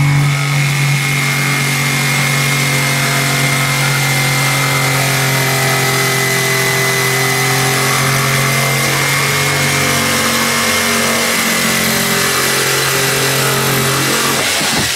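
Corded electric power tool running steadily with a constant high whine, pressed against the wooden boards, and switching off just before the end.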